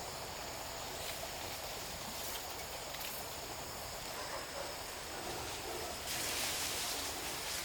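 Rural outdoor ambience: a steady high insect drone under a constant hiss, which grows louder for the last second and a half.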